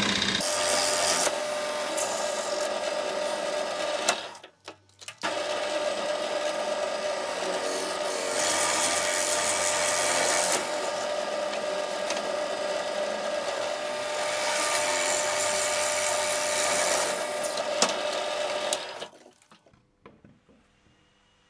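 Drill press running, its bit boring large holes through plywood. The cutting gets louder in stretches. The sound breaks off for about a second near the five-second mark and stops a couple of seconds before the end.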